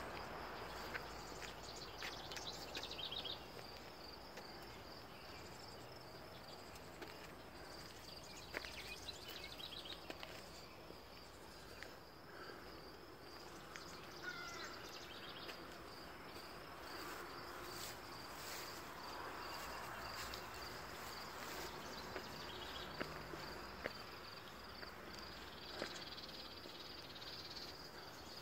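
Faint outdoor ambience: a high insect trill, pulsing evenly throughout, with scattered short bird chirps and a few light clicks.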